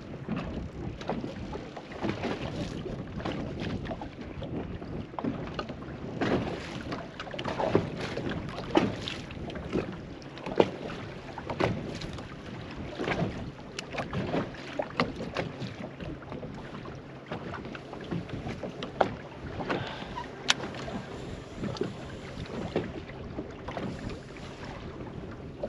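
Water slapping and knocking against the hull of a small fishing boat in irregular splashes, over wind noise on the microphone. A faint low steady hum joins about ten seconds in.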